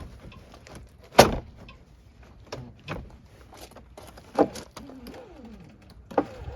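Several sharp clunks and knocks at a pickup's driver door, the loudest about a second in, with a faint creak around the middle. The door's window glass hangs loose because its window regulator is broken.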